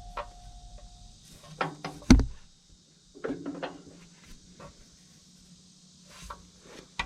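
Scattered knocks and clinks of metal tools and tractor parts being handled during a drive-coupling repair, with one heavier thunk about two seconds in.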